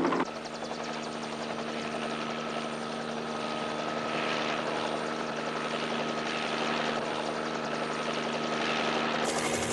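Helicopter engine and rotor running steadily, with a steady high whine over the noise. The sound shifts abruptly just after the start and again near the end.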